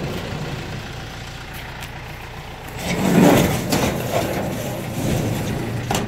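Kubota M7040 tractor's diesel engine idling steadily, with a louder rustling crunch about three seconds in.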